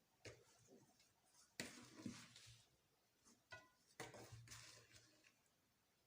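Faint handling sounds of flour being worked into a soft dough in a bowl: a few short, soft knocks and rustles, each fading quickly.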